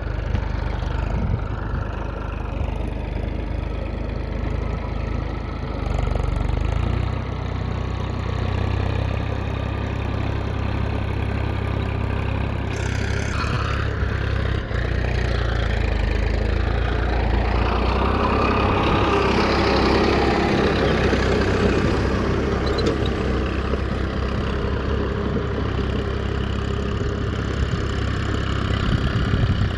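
An engine running steadily with a low, even hum. Higher whirring swells and shifts in pitch through the middle of the stretch.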